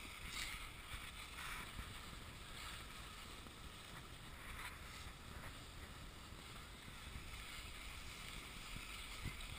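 Steady scraping hiss of a rider sliding down a packed-snow slope, with wind rushing over the microphone; the hiss swells slightly now and then as the rider turns.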